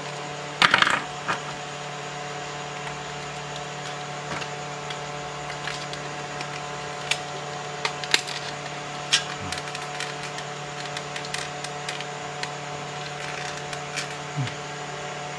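Scattered clicks and knocks of hands working a plastic power-strip housing, pressing in the latches to push out its broken switch; the loudest clatter comes about a second in. A steady hum runs underneath.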